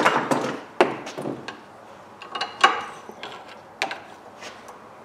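Irregular metallic clicks and scrapes as a long screwdriver is worked into the bore of a corroded brass ball valve held in a vise, wedged in to jam the ball so the stem can be turned out. The loudest knock comes about two and a half seconds in.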